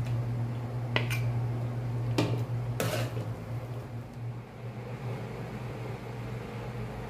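A metal spoon clinking and scraping against a stainless steel pot of chicken and eggplant stew, a few sharp clinks in the first three seconds, over a steady low hum.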